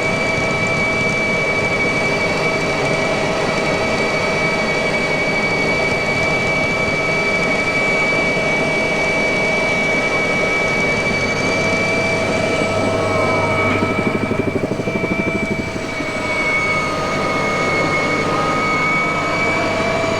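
Mi-2 helicopter in flight, heard from on board: the steady high whine of its twin turboshaft engines over the rotor and transmission rumble. It eases briefly about three-quarters of the way through.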